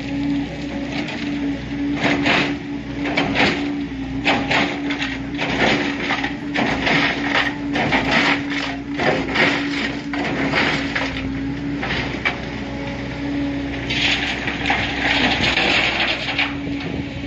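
An excavator's diesel engine runs steadily while boulders clatter and crash into a dump truck's bed, a rapid string of knocks lasting about ten seconds. Near the end comes a couple of seconds of rushing, scraping noise.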